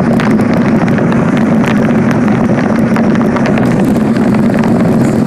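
Car driving on a wet, flooded highway, heard from inside: a loud, steady drone of tyres and engine with a rapid crackle of water spray.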